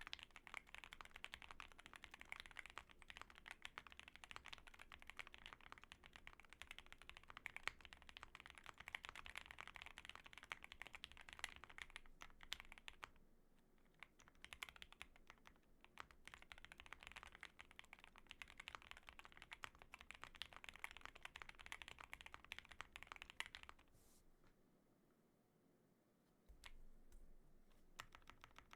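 Fast, continuous typing on a mechanical keyboard with lubed SP Star Polaris Gray switches, a POM plate, foam-dampened case and GMK Modo 2 keycaps. The typing thins out briefly about halfway through, then picks up again. It stops near the end, leaving only a few isolated keystrokes.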